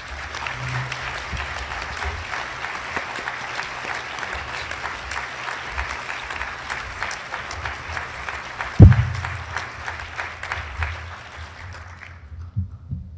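Audience applauding, dying away near the end, with a single loud low thump about nine seconds in.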